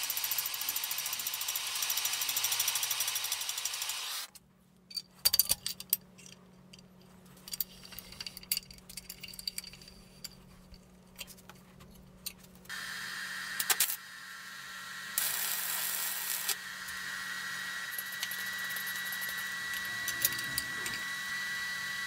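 Handheld butane torch flame hissing steadily for about four seconds. It cuts off, and then come a few sharp metallic clicks and knocks. From about halfway a steady machine hum with a thin high whine sets in and continues.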